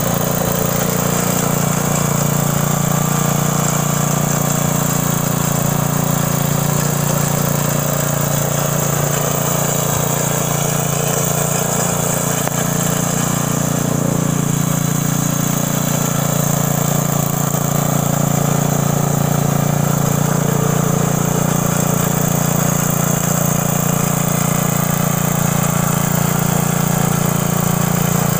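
Gasoline garden tiller's small engine running steadily under load as it tills soil, a continuous even drone.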